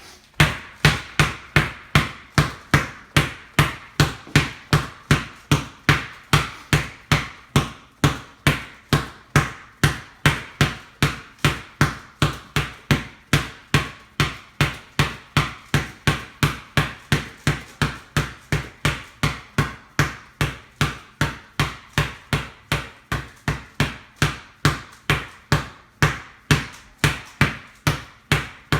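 Basketball dribbled steadily on a hard floor, an even run of bounces at about two a second.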